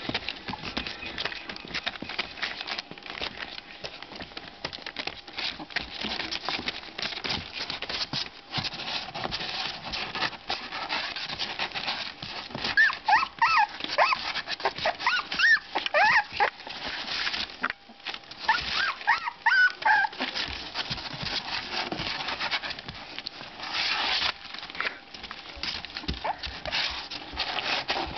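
Puppies playing and scuffling in a box, claws scratching and scrabbling almost constantly, with a run of short high-pitched whimpers and yelps in the middle stretch.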